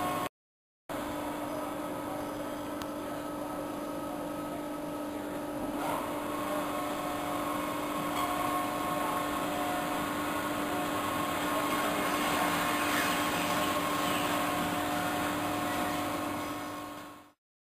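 Evashred EV110E Panther industrial shredder running steadily as it shreds foam rubber into strips, a steady machine whine over a coarse tearing noise. The noise grows a little partway through, and the sound cuts off near the end.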